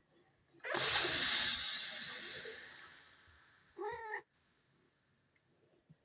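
A sudden hiss of noise that fades away over about three seconds, then a short wavering cat meow.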